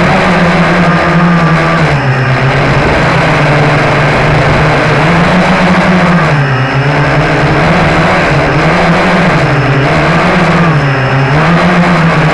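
Blade 350QX quadcopter's four brushless electric motors and propellers humming loudly close to the microphone, the pitch swinging up and down several times as the throttle changes to hold the hover.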